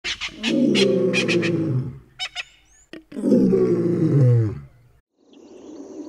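Two long, deep roars, each about a second and a half, sliding down in pitch at the end, with a few sharp clicks before and between them. The sound cuts off about five seconds in.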